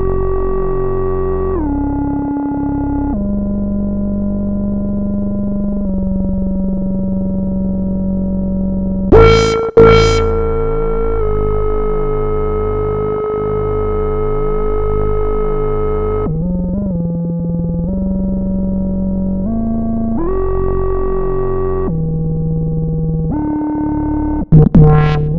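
Synthesizer music: slow, sustained chords that shift to a new pitch every few seconds. It is broken twice by a pair of sharp, loud hits, about nine seconds in and again near the end.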